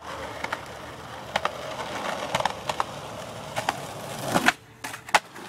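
Skateboard wheels rolling on concrete, clicking over the slab joints, building to a louder rush that cuts off suddenly as the board is popped off the top of a stair set. About half a second later comes one sharp clack of the board hitting the ground.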